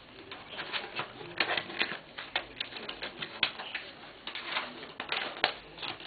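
Jigsaw lamp pieces being slotted together by hand: a run of irregular light clicks and taps as the interlocking pieces are handled and joined.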